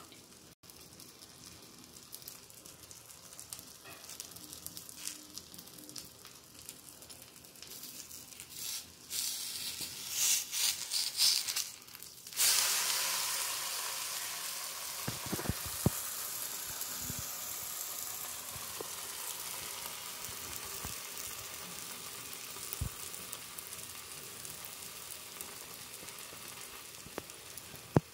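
Avocado dosa frying in oil on a hot flat tawa: a quiet steady sizzle, then a few short bursts of noise, and about twelve seconds in a sudden loud sizzle as the dosa is flipped onto the hot pan, slowly dying down, with a few light knocks just after.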